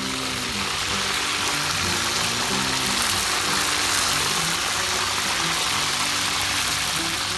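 Frog pieces deep-frying in hot oil, a steady sizzle, with background music playing softly underneath.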